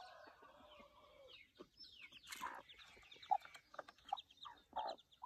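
Ducklings peeping in quick, high, downward-sliding notes, mixed with short, lower clucking calls from an adult bird, several of them in the second half.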